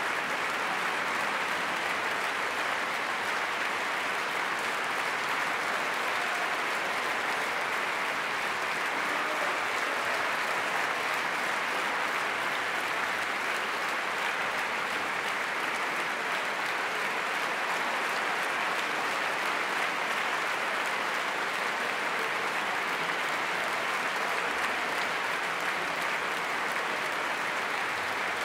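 Large concert-hall audience applauding steadily, with no let-up.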